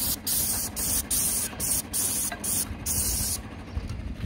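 Airless paint spray gun on an extension wand hissing as roof coating is sprayed onto concrete tiles. It goes in short runs broken by brief gaps about every half second, then stops a little over three seconds in, with a low rumble underneath.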